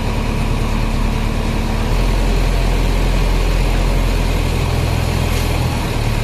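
Heavy diesel engines of a JCB 3DX backhoe loader and a tipper lorry running steadily, with a deep drone that grows stronger about two seconds in.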